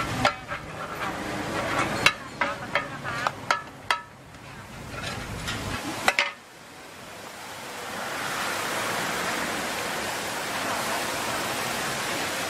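Two metal spatulas scraping and clinking against a large flat griddle pan as pad thai noodles are stir-fried, a quick irregular run of sharp clinks for about six seconds. Then the clinking stops and a steady sizzling hiss builds up and holds.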